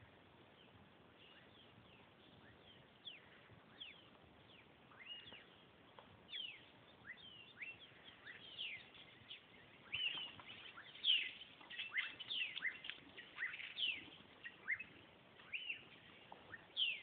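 Birds chirping: many short, mostly falling calls, sparse at first and growing busier and louder from about the middle on.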